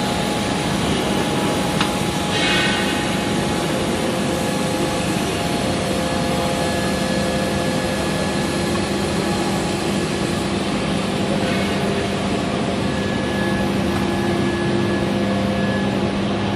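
Steady drone of running forging-shop machinery, a dense noise with several constant humming tones and no hammer blows; a single faint click about two seconds in.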